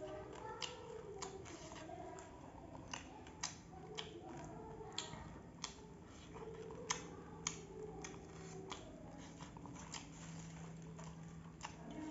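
Eating by hand from a steel plate: irregular crisp crunches and clicks of chewing a dry, crunchy rice mix and of fingers scraping food together on the plate, with a couple of sharper crunches a little after the middle.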